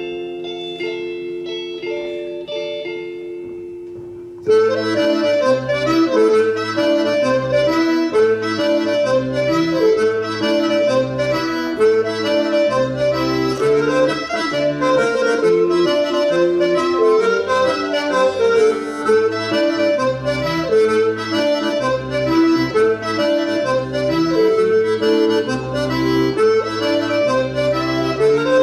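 Traditional Breton dance music led by an accordion: a held chord for about four seconds, then a lively, rhythmic dance tune with a bass line.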